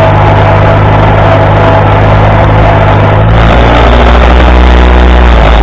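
International Harvester 240 tractor's engine running loud and close while the tractor is driven. Its note drops about three and a half seconds in and then rises a little.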